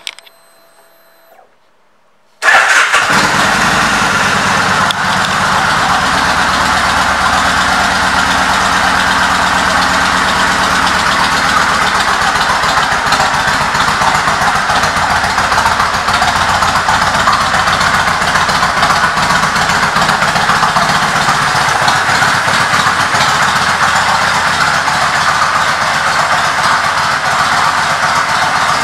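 Fuel-injected V-twin engine of a 2002 Kawasaki Vulcan 1500 Nomad Fi, fitted with a Vance & Hines exhaust, starting suddenly a couple of seconds in, then idling steadily.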